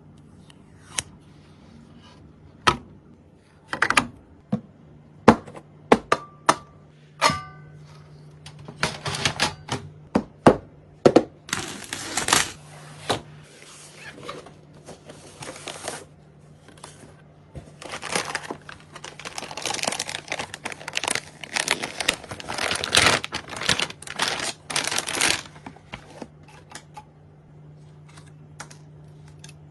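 Computer parts being handled and fitted together: scattered sharp clicks and plastic knocks, then a denser stretch of rustling and scraping in the second half, over a faint steady hum.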